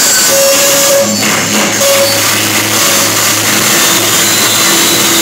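Loud, distorted live rock band music, with a dense wall of noise and long held guitar and bass notes.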